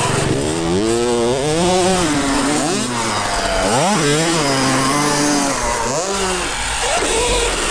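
Small youth dirt bike engines revving on a motocross track, their pitch climbing and dropping again and again with throttle and gear changes, more than one bike at once.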